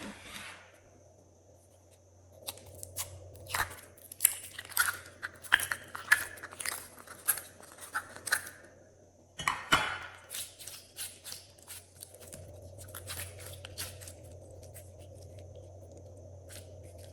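Glossy slime being handled and mixed, with clusters of wet clicks and crackling pops from about two seconds in, another burst of pops near ten seconds, then fewer, quieter sounds.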